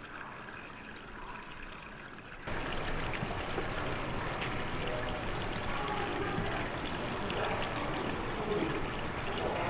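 Steady rushing of running water, jumping louder about two and a half seconds in, with faint chatter of voices behind it from midway on.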